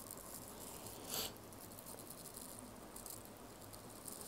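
Faint tapping and scratching of a stylus tip on a tablet's glass screen as a line is drawn, with a short scratchy swish about a second in.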